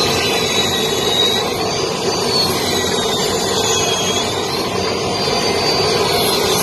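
Large circular table saw running, its blade cutting wooden boards as they are fed through. A continuous machine noise with a thin high whine that wavers up and down.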